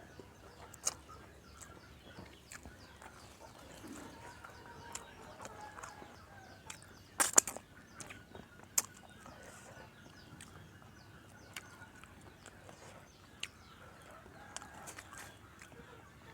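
Quiet outdoor background with faint bird calls, likely chickens, and scattered light clicks and knocks; the two loudest knocks come about seven and nine seconds in.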